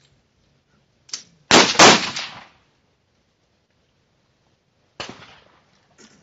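Rifle shots on a firing line: several sharp reports of differing loudness. The loudest two come close together about a second and a half in, with a short echoing tail, and others follow near five and six seconds.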